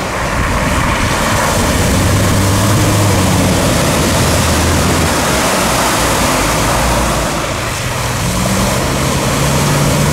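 UAZ Patriot SUV engine working hard as it drives through a deep muddy puddle, wheels churning and throwing mud, over a loud rushing noise. The engine note sits low for a few seconds, then a higher note comes in near the end.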